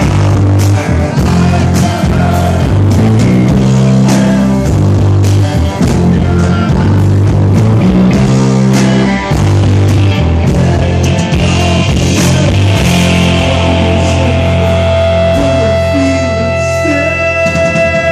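Live rock band playing loud electric guitars over bass and drums. Near the end the drumming thins out and long held guitar notes ring on.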